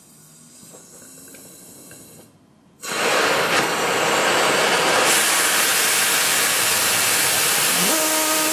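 Small hybrid rocket engine, an acrylic (PMMA) fuel grain burning in gaseous oxygen: at first a faint hiss of a small oxygen flow, then about three seconds in the engine fires into a loud steady rushing hiss of exhaust that grows harsher about five seconds in. Near the end a humming tone rises briefly in pitch and then holds steady over the rush.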